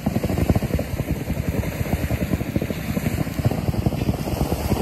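Wind buffeting the microphone, a loud, uneven low rumble and flutter.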